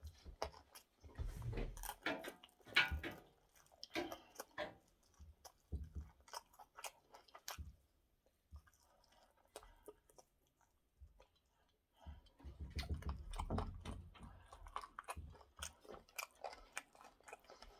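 A person chewing food close to the microphone, with irregular mouth clicks and small bites. There is a quieter pause in the middle and a denser stretch of chewing about twelve seconds in.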